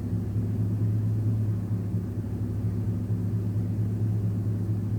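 Vehicle engine idling: a steady low hum that does not change.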